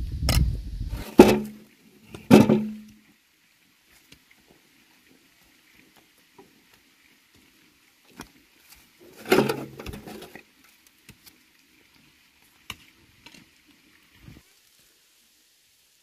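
Hand digging in wet clay soil: a hoe strikes into the earth twice, about a second apart. Then quiet with scattered small knocks, and a short burst of thudding and scraping about nine seconds in.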